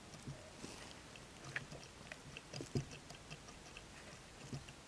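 Faint, irregular light clicks and small knocks from a replacement turbocharger being handled, its shaft rocked by hand to check the play in its bearings.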